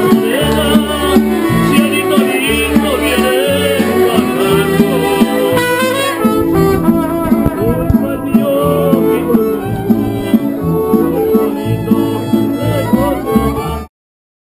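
Mariachi band playing live: violin, trumpet and guitars over a steady bass line. The music cuts off suddenly near the end.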